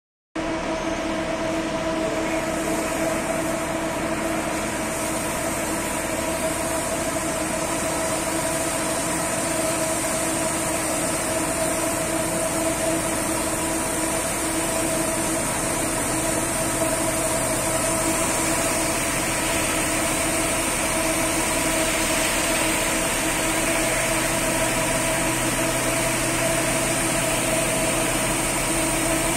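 Automatic bus wash machinery running steadily: an even mechanical hum with several steady tones and a high whine, and a little more hiss in the second half.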